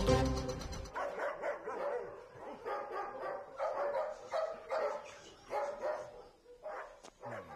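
Army dogs in chain-link kennel runs barking over and over, with the barks coming every half second or so from about a second in. The dogs are restless at night and being told to stop and go to sleep.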